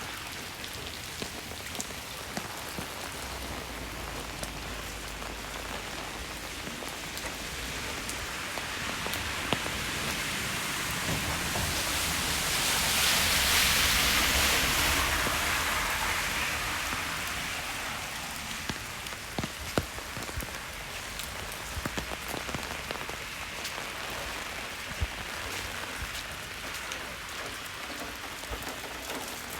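Rain falling steadily on a wet city street, a constant hiss with scattered drip ticks. About halfway through, the hiss swells louder for several seconds and then fades back.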